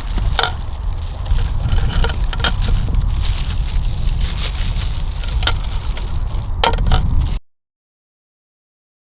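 Scattered sharp cracks and snaps of wood over a steady low rumble, cutting off suddenly about seven seconds in.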